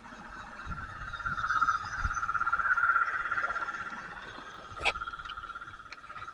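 Small electric motor of a model railway locomotive whining with a fast pulsing buzz as it runs along the track. It grows louder toward the middle, fades away, and gives a sharp click near the end.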